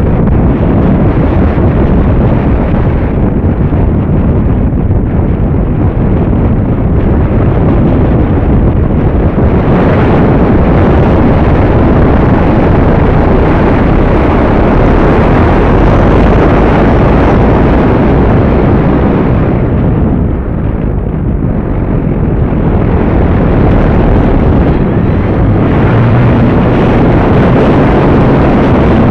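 Wind rushing and buffeting over the microphone of a camera riding on a Multiplex AcroMaster, an electric RC plane, mixed with its motor and propeller in flight. The rush is loud and dense, and eases briefly about two-thirds through.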